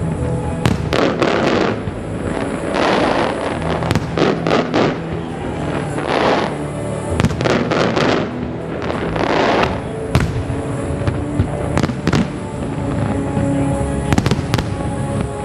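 Aerial firework shells bursting, with many sharp bangs throughout and several longer hissing swells, over a steady bed of music.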